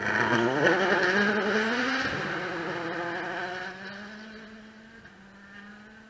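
A 2017 World Rally Car's 1.6-litre turbocharged four-cylinder engine accelerating hard just after passing close by, its pitch rising. It changes gear about two seconds in, then holds a steadier note that fades as the car drives away.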